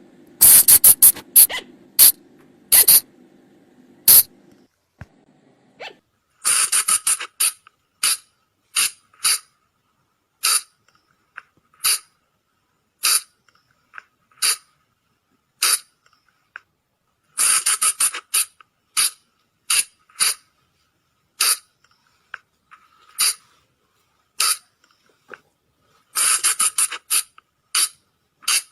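Sunda colugo (flying lemur) calls: short, sharp squeaks, some in quick clusters of several and others single, about a second or so apart. A faint low hum runs under the first few seconds.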